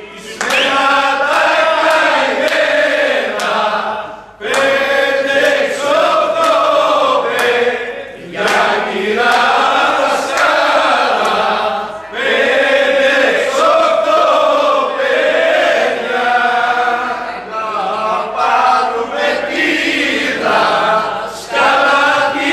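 A group of men singing a Greek folk song together in long, drawn-out phrases, breaking off every few seconds for breath.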